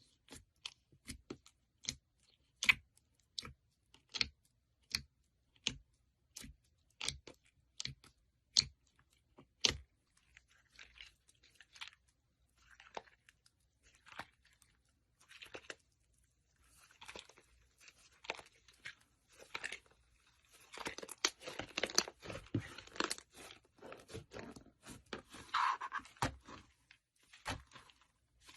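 Slime being worked by hand: sharp wet pops at about two to three a second for the first ten seconds, then softer scattered squishes, then dense crunchy crackling in the last third.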